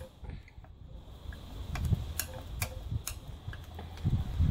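A screwdriver clicking against the screws and metal wheel guard of an old Skil 150 mm bench grinder as the screws are undone. A handful of sharp ticks come about two to three seconds in, over low handling bumps, with a heavier knock near the end.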